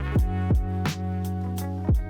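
Background music with a steady drum beat and plucked guitar-like instruments.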